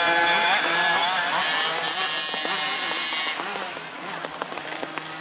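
Small 50cc two-stroke motocross bike engine revving, its pitch rising and falling as the throttle is worked, then fading about three seconds in. A few light ticks near the end.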